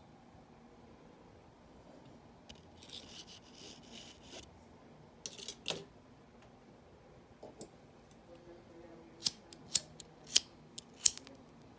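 Rustling and scraping, then a quick run of about six sharp clicks as a table lamp's socket switch is turned and the lamp comes on.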